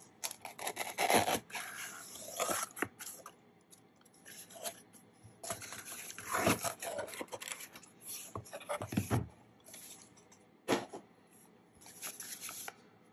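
Corrugated cardboard box being handled and opened by hand: flaps scraping and rustling in bursts, with scattered taps and knocks as a boxed coin case is lifted out.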